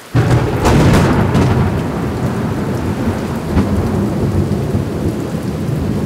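A thunderclap breaks in suddenly just after the start, loudest in the first second, then rumbles on over steady heavy rain.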